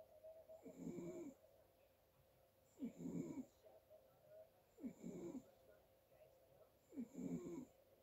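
A sleeper snoring faintly and regularly: four snores about two seconds apart.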